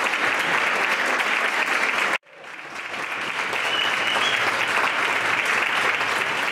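Audience applauding. The applause cuts out suddenly about two seconds in, then swells back and carries on.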